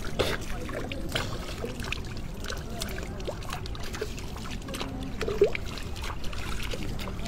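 Hands scooping pond water and letting it splash and dribble back, in irregular small splashes, as two people wash for ablution at the water's edge.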